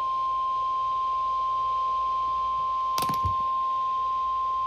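Emergency Alert System attention signal: a single steady tone, the roughly 1050 Hz NOAA Weather Radio warning alarm, announcing a severe thunderstorm warning. A brief click cuts across it about three seconds in.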